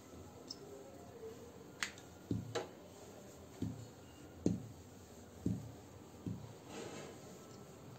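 Wooden rolling pin rolling dough out thin on a marble board: a soft thud with each stroke, about once a second, and a few sharper clicks.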